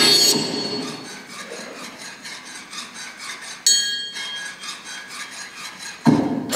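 Concert band music: a loud passage cuts off and leaves quiet, fast, evenly spaced percussion ticks. About three and a half seconds in there is a bright metallic strike that rings, and near the end the full band comes back in on a loud accent.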